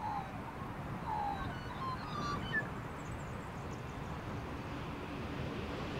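Distant EMD 'Bulldog' diesel locomotives running light engine on approach, a low rumble growing slightly louder near the end. A few short bird chirps sound over it in the first three seconds.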